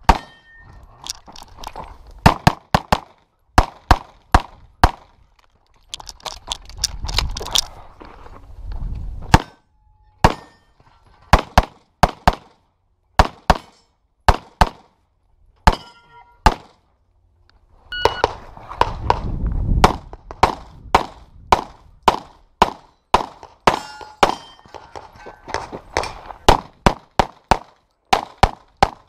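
Rapid handgun fire in strings of quick shots, many in close pairs. Some shots are followed by the ringing ping of steel targets being hit. Twice, longer stretches of rushing noise fall between the strings.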